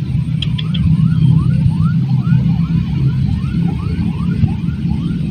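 A steady low rumble, with a chirping call repeated over it about two to three times a second, each chirp rising and then falling.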